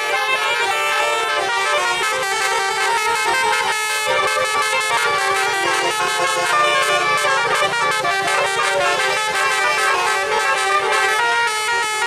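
Tour bus telolet horn, a set of roof-mounted horn trumpets, playing a tune: held notes that change pitch in steps, several sounding at once, without a break.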